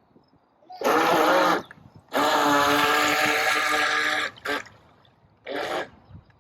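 Remote-control toy boat's electric motor whining as it drives through the water, in bursts: a short wavering burst about a second in, a steady run of about two seconds, and a brief burst near the end.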